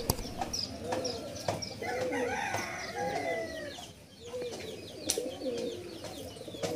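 Domestic pigeons in a loft of Madrasi pigeons cooing, short low arched coos about once a second. A rooster crows once in the background about two seconds in.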